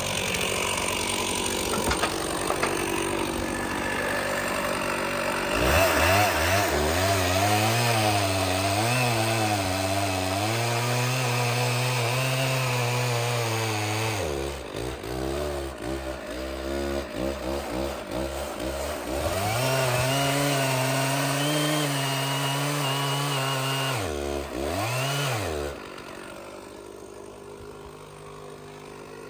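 Stihl 066 two-stroke chainsaw run at full throttle cutting through a large red oak log, its engine note sagging under load and picking back up as the bar bites. About 26 seconds in it drops back to a quieter idle.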